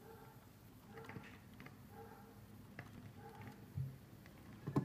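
Vinyl record playing with no music: faint surface noise with scattered soft clicks and ticks as the stylus tracks the groove. Two low thumps stand out near the end.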